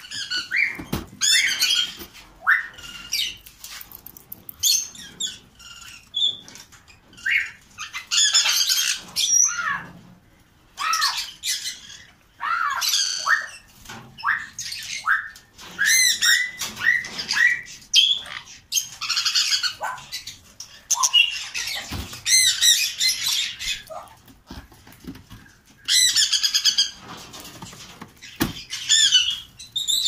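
Budgerigars squawking and chattering, a steady stream of short, quick high chirps and warbles in overlapping clusters.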